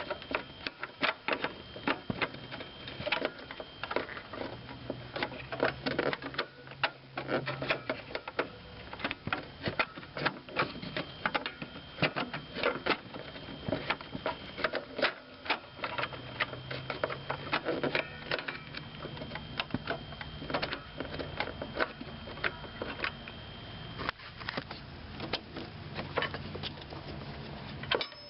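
Rapid, irregular plastic clicking and tapping as a blower motor resistor is pushed and wiggled into its opening in the heater housing, its catches knocking against the mounting tabs.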